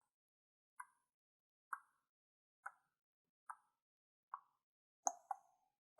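Crystals tapped together in short, sharp knocks about once a second, five single taps and then two in quick succession near the end.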